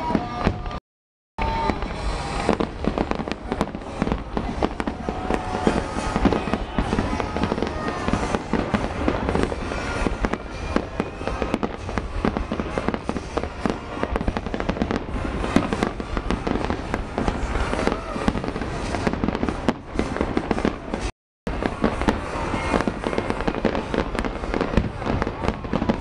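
The finale of a fireworks display: a dense, continuous barrage of bangs and crackles. The sound cuts out for a moment about a second in and again about twenty seconds in.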